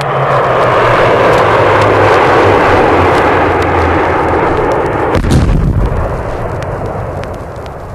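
USAF jet aircraft roaring past in a low pass, its low tone sliding down in pitch, then a single heavy blast about five seconds in as the roar fades, heard from a vinyl record with clicks and pops of surface noise.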